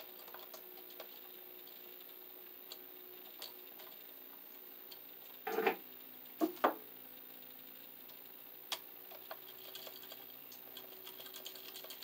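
Faint small clicks and ticks of pliers working a copper wire onto a wall outlet's terminal screw, over a faint steady hum. About halfway through there are two brief muffled sounds.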